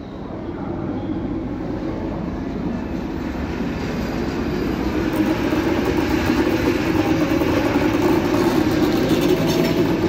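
Diesel locomotive running light past on the station tracks, its engine drone and rail noise growing steadily louder as it approaches and draws level.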